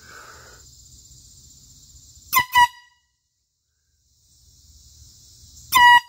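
Handheld canned air horn giving two quick short toots about two seconds in, then a louder, longer blast near the end, each a single steady honking pitch. Crickets chirr steadily in the background.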